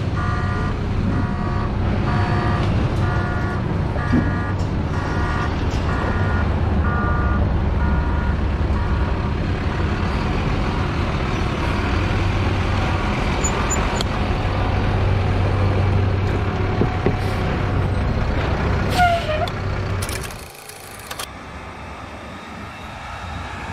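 Concrete mixer truck's diesel engine running as the truck pulls past and turns in, over a reversing alarm beeping steadily for the first eight seconds or so. A brief high squeal comes near the end of the drive-in, then the engine noise drops to a quieter, more distant truck.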